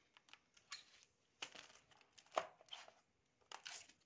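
Faint handling noise: a few short rustles and crackles as a piece of beeswax comb is handled, the loudest about two and a half seconds in.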